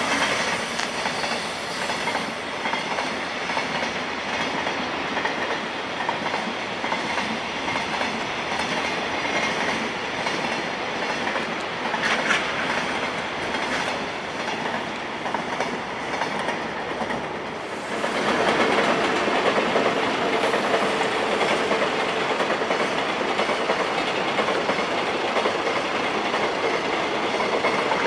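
Freight train hauled by an EH500 'Kintaro' electric locomotive passing at high speed, its wheels clattering steadily over the rail joints. About two-thirds of the way through it gets louder and a steady hum joins in.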